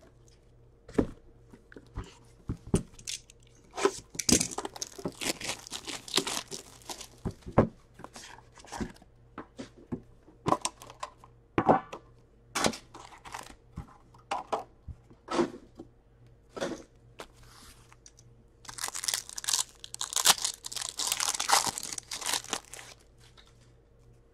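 A metal trading-card tin being handled, with sharp clicks and knocks as it is opened. Card pack wrappers are then torn open and crinkled in two longer stretches, one about four seconds in and one about nineteen seconds in, with lighter rustling of cards in between.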